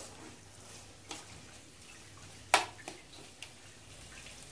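Metal ladle stirring and scraping mutton masala in a stainless steel kadai, with a few sharp clinks of metal on metal, the loudest about two and a half seconds in, over a faint frying sizzle.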